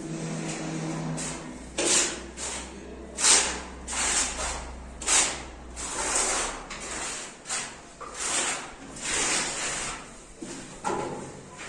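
A run of rough scraping strokes, each a short swish, coming irregularly about once a second.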